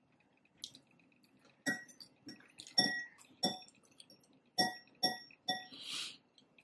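A utensil clinking against a glass bowl about six times, each strike ringing briefly at the same pitch, then a short rustle near the end.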